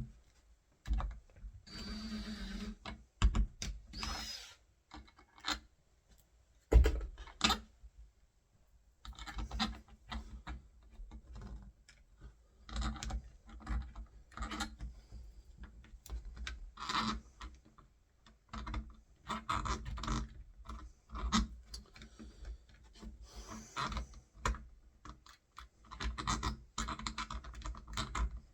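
Door handle and latch hardware being worked on a hollow wooden door: irregular clicking, scraping and rubbing of metal parts against wood, with one sharp knock about seven seconds in.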